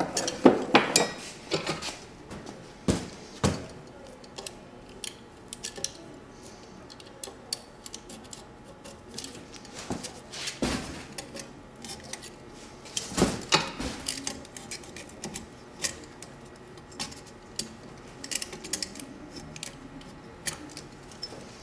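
Hand tools scraping and tapping along the edge of a metal scooter deck as grip tape is creased and cut: irregular scrapes and light clicks, with a few sharper strokes about half a second, three, ten and thirteen seconds in.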